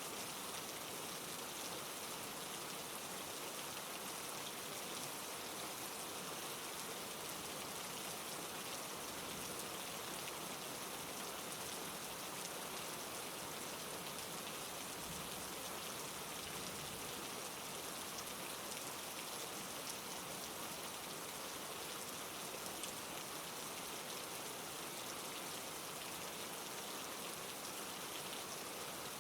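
Steady rain falling, soft and even, a continuous hiss of drops with no thunder.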